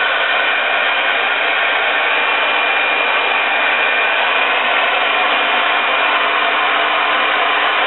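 Andis Ionic hand-held hair dryer running steadily: a loud, even rush of air with a steady high-pitched whine over it. It is blowing on freshly applied weaving glue at the hairline to set it.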